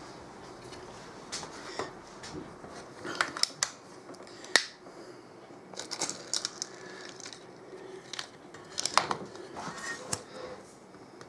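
Scattered sharp metallic clicks and clacks of a BSA Ultra CLX .22 PCP air rifle's action being worked: the bolt drawn back, a single-shot loader seated in the breech and the bolt closed. The sharpest click comes a little under halfway through.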